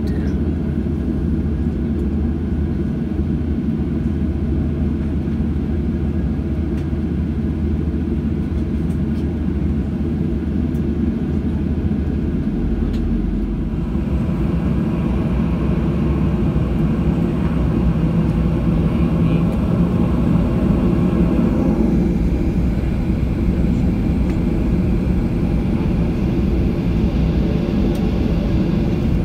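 Boeing 737 jet engines heard from inside the cabin, a steady low rumble at ground power. About halfway through, the engines spool up and the sound grows fuller and a little louder as the airliner begins to taxi.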